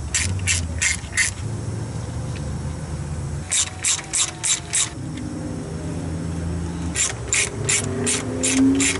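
Hand ratchet with a T40 Torx bit backing out the camshaft thrust plate bolts: three runs of five or six sharp clicks, about three a second, with pauses between them.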